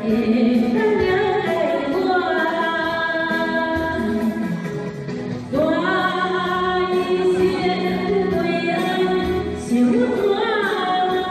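Female voices singing a slow Taiwanese-language ballad over instrumental backing music, in long held, gliding notes.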